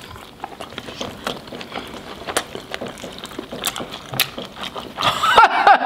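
Close-up mouth sounds of eating fried chicken wings: wet smacks, sucks and clicks as the meat is stripped off the bones in the mouth. Near the end a short wavering vocal sound from one of the eaters, such as a groan or laugh.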